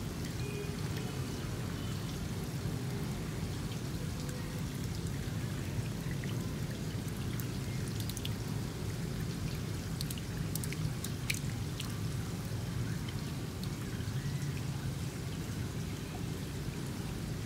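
Steady splashing and trickling of water in a shallow goldfish tub, with a few sharper drips about halfway through.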